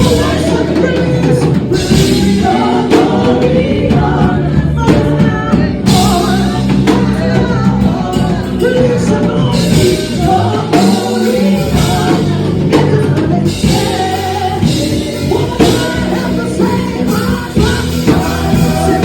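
Gospel worship music: voices singing over a band with drums.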